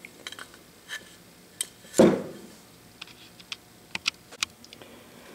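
Small metal parts being handled on a workbench: light, scattered clicks and ticks from the motor end bell, switch and screws, with one louder knock about two seconds in.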